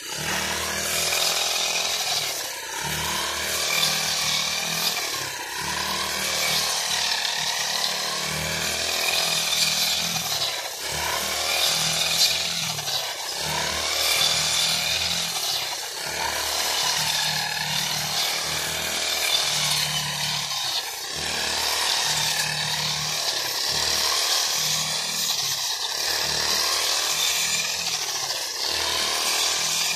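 Backpack brush cutter's small petrol engine running hard as it cuts green fodder, its note dipping and picking up again every second or two as the cutting head swings through the crop.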